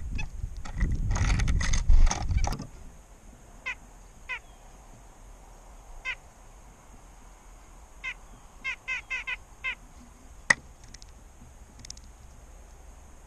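Loud rumbling noise for the first couple of seconds, then a bird calling in short notes that each fall in pitch, scattered at first and then a quick run of about five. A single sharp click comes near the end.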